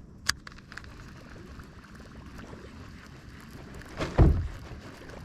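Low water and wind noise around a small paddled fishing boat, with a sharp click shortly after the start and a heavy thump about four seconds in.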